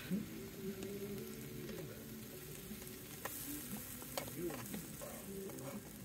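Sliced mushrooms sizzling quietly in a small frying pan on a camping gas stove, with a few light clicks as the food is moved about in the pan.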